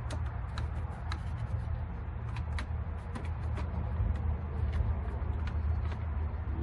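Scattered light clicks and ticks of plastic parts being handled as the ignition switch is pulled out, over a steady low rumble.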